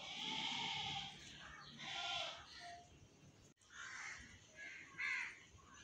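Goats bleating in the background, several separate calls, mixed with crows cawing.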